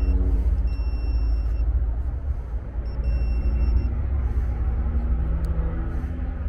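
Non-contact voltage tester sounding a high steady beep in spells of about a second, twice, as it detects line voltage at the air conditioner's contactor. Under it a steady low rumble.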